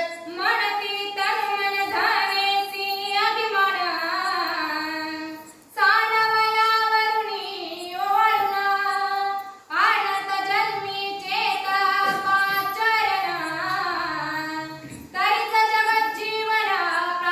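A high female voice singing devotional verses in long, gliding melodic phrases, with three short pauses for breath.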